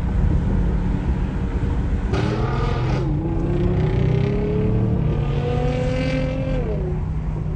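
Car engine pulling hard under acceleration. Its pitch jumps about two seconds in, climbs steadily for several seconds, then drops away near the end as the throttle comes off or a gear changes.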